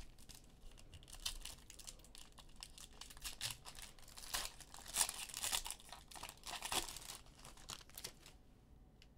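Foil wrapper of a Phoenix football card pack being torn open and crinkled by hand: a run of crackling, rustling crinkles that grows busier midway and dies down near the end.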